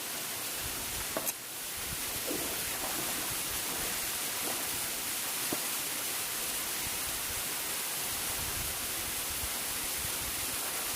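Steady rush of waterfall stream water flowing at a modest, normal rate, with a couple of faint clicks about a second in.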